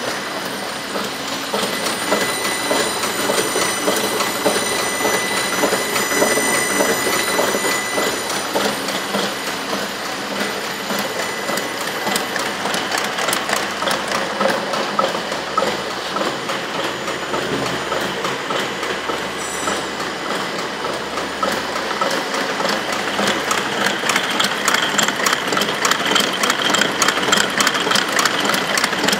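A Rose packaging machine running, its mechanism clattering steadily with fast, dense ticking.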